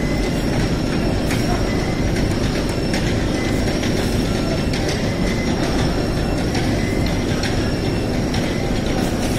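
Truck Loader 16P-DC belt conveyors running under load, a steady mechanical rumble of belts over rollers with a thin high whine, and a few light knocks as sacks ride the belts.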